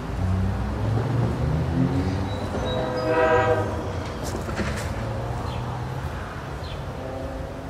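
Horn of an approaching Amtrak GE P42DC diesel locomotive sounding, several tones together, loudest about three seconds in, over the low rumble of the oncoming train.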